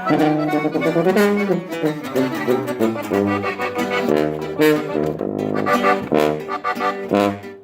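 Norteño band music with tuba: an instrumental break, a brass-sounding melody over a tuba bass line, between sung verses.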